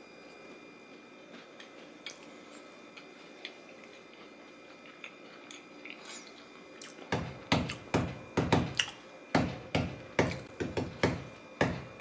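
Someone chewing a crunchy shortbread cookie close to the microphone: after a quiet stretch, loud crisp crunches start about seven seconds in and repeat about three times a second.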